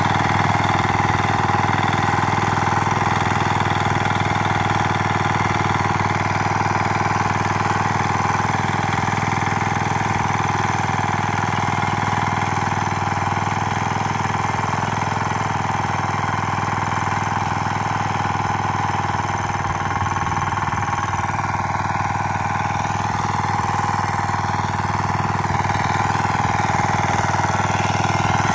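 Small walk-behind rotary tiller (mini power tiller) engine running steadily under load as its rotating tines churn through grassy soil.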